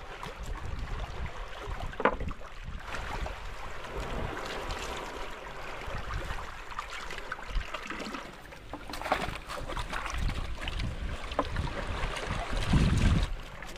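Wind buffeting the microphone over water washing at the shoreline, with a few sharp knocks and a strong low gust near the end.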